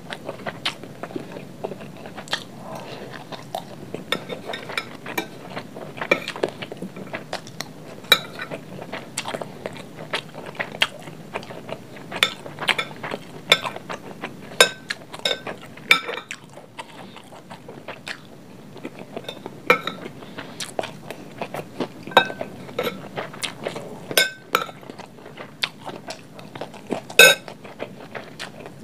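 Close-miked eating of fried rice: a metal spoon repeatedly clinks and scrapes on a glass plate while scooping, with chewing and crunching between. The sharpest, loudest clink comes near the end.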